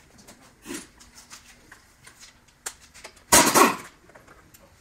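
Air impact wrench firing one short burst of just over half a second, about three seconds in, to spin out a brake caliper mounting bolt, with light clicks and clinks of tools being handled around it.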